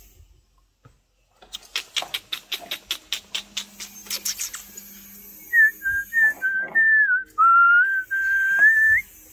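A quick, regular run of sharp clicks, about five a second, for about three seconds, then a person whistling a wavering tune in short held notes.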